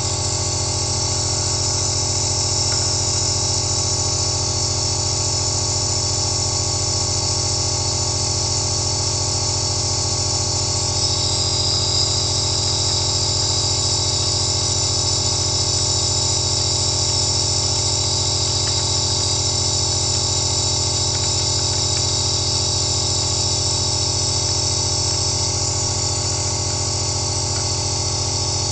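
Compressor nebulizer running: a steady motor hum with many fixed tones under the hiss of mist through the medication cup and face mask. The hiss grows brighter about eleven seconds in.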